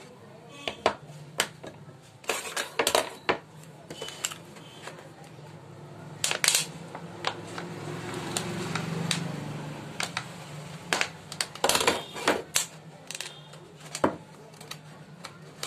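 Thin plastic water bottle crackling and clicking as it is squeezed, turned and cut with a utility knife: irregular sharp clicks, with a low steady hum underneath.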